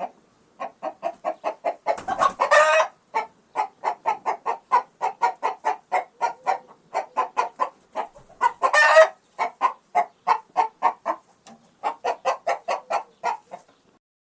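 Angry chicken clucking fast, about four or five short clucks a second. The clucking is broken by two longer, louder squawks, one about two seconds in and one near the middle. The calling stops shortly before the end.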